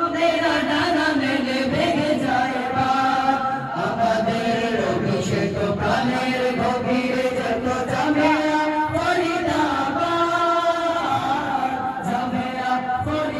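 A group of boys singing an Islamic tarana together in Bengali into handheld microphones, held notes and melodic phrases running on continuously.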